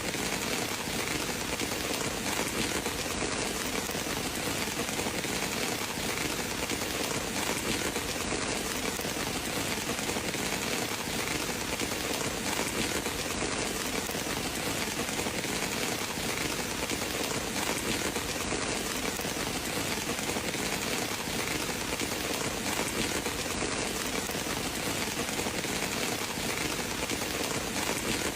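Steady rain falling, an even, unbroken hiss of drops with no change in strength.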